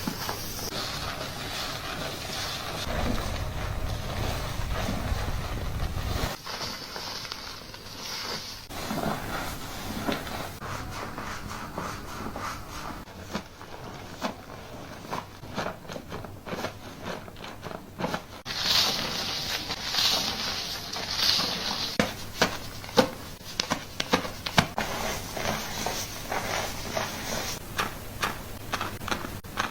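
Hands scrubbing and massaging a lathered scalp during a shampoo: crackling, scraping rubs of fingers through wet, foamy hair. In the last third the rubbing turns into many short, sharper clicks.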